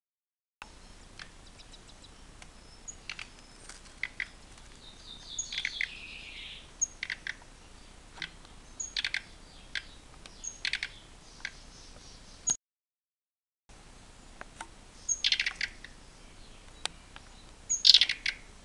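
Small cage birds giving short, high chirps in scattered clusters, mixed with sharp little clicks. The loudest bursts come about 15 and 18 seconds in. The sound cuts out completely for about a second partway through.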